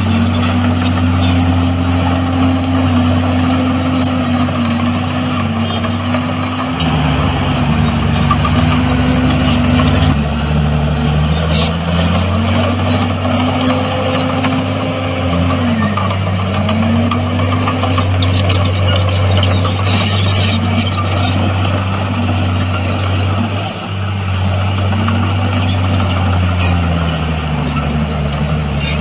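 Heavy diesel engine of earth-moving machinery running continuously, its pitch dipping and recovering several times as the load on it changes.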